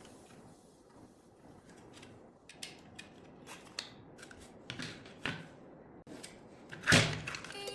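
Hands working small kit parts: scattered light clicks and rustles, with one louder scrape about seven seconds in.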